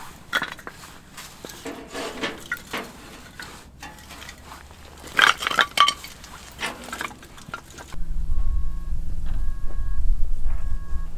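Split firewood pieces knocking and clattering against each other as they are pulled by hand from a stacked pile, in scattered clusters. About eight seconds in this gives way to a louder, steady low rumble of wind buffeting the microphone.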